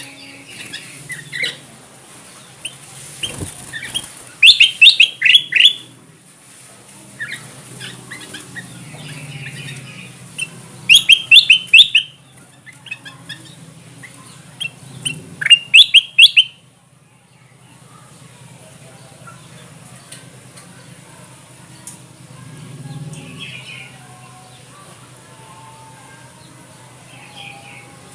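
Kutilang emas bulbul calling: three loud bursts of quick, clipped chattering notes, with softer calls between them. It is a lure recording, played to draw in wild kutilang emas.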